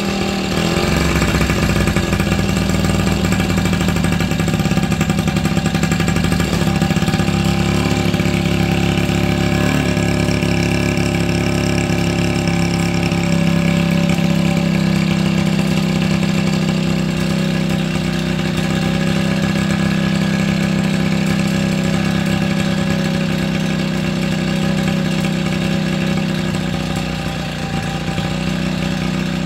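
Yamaha Chappy LB50's 49 cc two-stroke single-cylinder engine running at idle, warming up after a cold start. It runs a little unevenly for the first dozen seconds, then settles into a steady idle.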